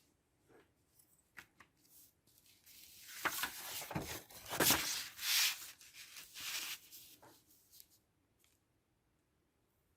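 Paper being handled: scattered light clicks, then a run of rustling, tearing-like noise from about three seconds in, loudest near the middle and stopping about eight seconds in.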